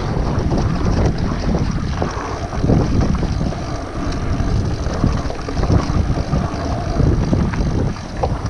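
Mountain bike ridden over a sandy trail: the tyres rolling through sand with irregular knocks and rattles from the bike over bumps, under steady wind noise on the microphone.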